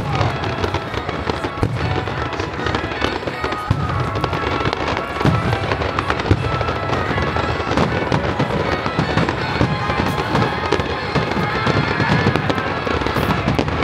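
Aerial fireworks going off in a continuous barrage: dense crackling of bursting shells, with heavier booms every second or two.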